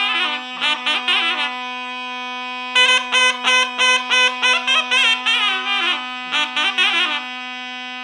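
Zurna playing an ornamented bozlak melody with fast trills and turns over a steady drone from a second reed instrument. The melody breaks off twice, about a second and a half in and near the end, leaving only the drone.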